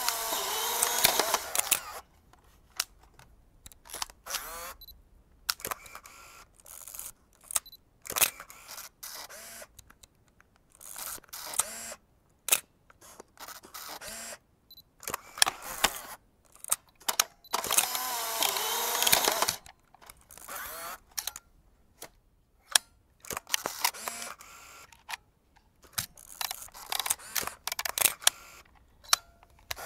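Vintage film camera mechanisms worked close up: a string of sharp shutter and lever clicks at uneven spacing, with two longer mechanical runs of about two seconds each, at the start and about eighteen seconds in.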